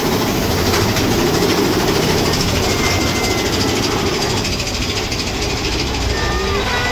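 Big Thunder Mountain Railroad mine-train roller coaster running on its track: a loud, steady rush of noise, with a few thin high squeals about three seconds in and near the end.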